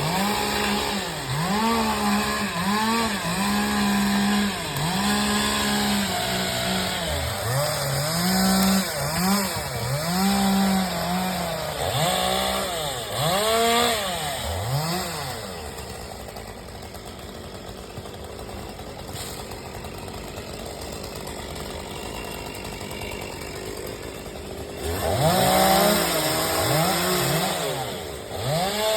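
Chainsaw revving up and down over and over, about once a second, as it cuts. Midway it drops to a quieter, even sound for several seconds, then revs hard again near the end.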